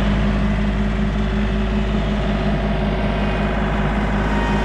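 John Deere compact tractor engine idling, loud and steady throughout.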